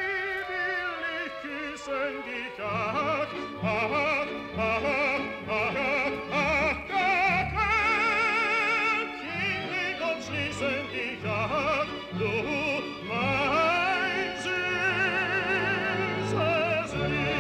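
Operatic singing with a wide vibrato over low, slowly changing accompaniment: a musical score.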